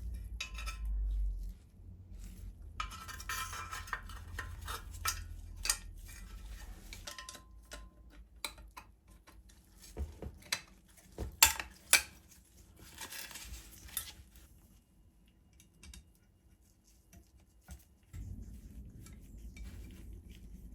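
Small metal parts clinking, scraping and knocking as they are handled on a workbench, with two sharp knocks near the middle. A low hum comes in at the start and again near the end.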